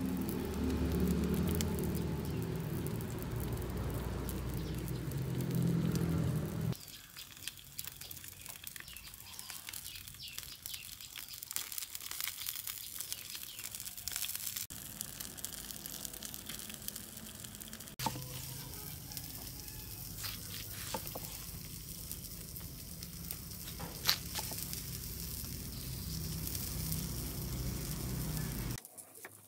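Whole fish grilling on a wire rack over glowing charcoal, sizzling and crackling with scattered small pops and one sharper pop near the end. A louder low rumble covers it for the first several seconds.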